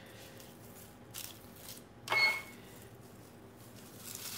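Quiet handling at a kitchen counter with one short, light clink of a hard object about two seconds in, ringing briefly, and faint rustles around it.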